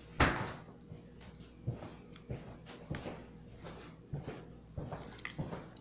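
Metal spoon tapping and scraping against a plastic container while water is spooned off the top of oobleck: scattered light clicks and knocks, after a short loud rush of noise near the start.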